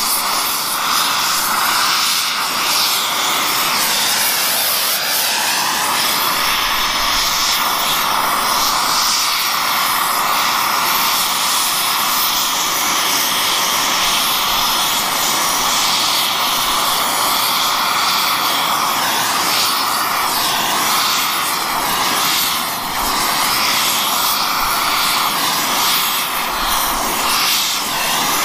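Oxyfuel torch flame hissing steadily while brazing a cracked cast iron pump housing, its pitch dipping briefly now and then as the tip moves against the work.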